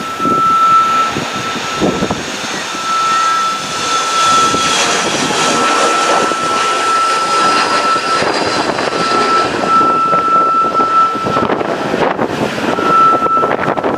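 Jet engines of a Fuji Dream Airlines Embraer regional jet on takeoff: a loud steady jet noise with a high whine and a sustained whistling tone that breaks off and returns several times.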